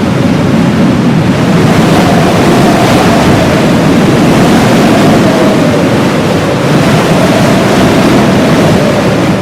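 Heavy blizzard wind blowing steadily and loudly, with a faint howling whistle that wavers in pitch above the rush.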